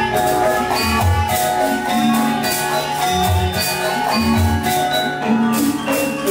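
Sundanese gamelan ensemble playing: bronze metallophones ring out a running melody over low drum strokes about once a second.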